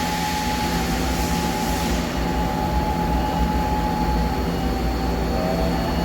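Nakamura-Tome AS-200Y CNC turning center running with a steady mechanical hum and a couple of constant whining tones from its motors and drives.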